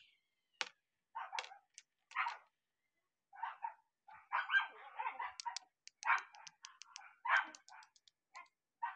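A dog barking in short yaps, roughly once a second, with bunches of light sharp clicks from toy shell casings being handled about halfway through and near the end.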